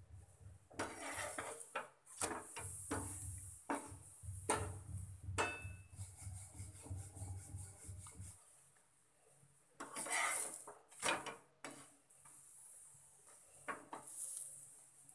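Scrapes and knocks of a metal spatula pressing a paratha on a non-stick tawa, mixed with a wooden rolling pin rolling dough on a board. A low hum stops suddenly about eight seconds in.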